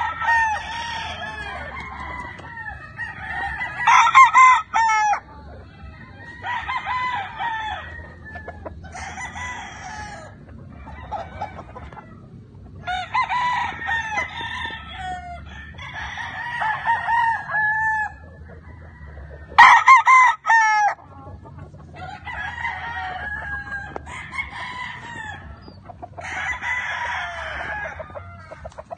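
Gamefowl roosters crowing over and over, one crow after another every couple of seconds, some overlapping. Two louder crows come about four seconds in and about two-thirds of the way through.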